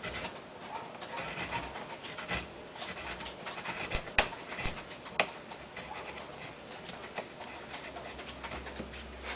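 Wood-carving chisel pushed by hand through a wooden board, a run of short scraping cuts as shavings lift, with a couple of sharp clicks about four and five seconds in.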